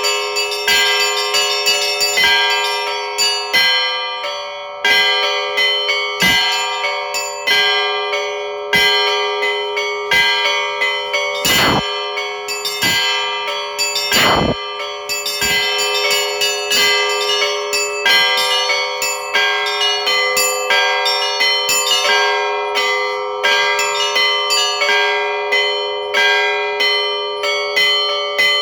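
Russian Orthodox church bells rung by hand: quick, irregular strikes of the smaller bells over the steady ringing of the larger ones. Two heavier, deeper strikes come a little before and after the middle.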